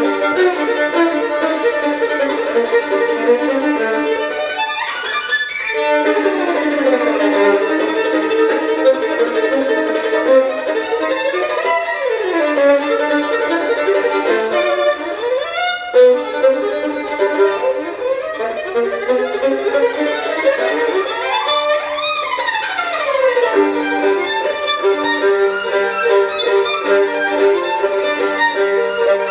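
Solo violin playing a fast virtuosic passage, often in double stops, with rapid runs that sweep up high and back down several times.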